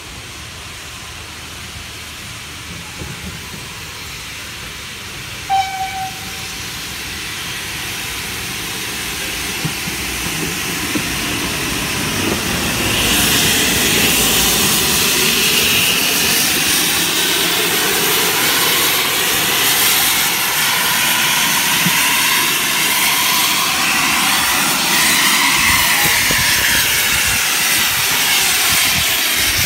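GWR 5600-class 0-6-2 tank engine No. 5643 running light at low speed, its steam hiss growing louder as it approaches and staying loud as it passes close by. A short whistle note sounds about five seconds in.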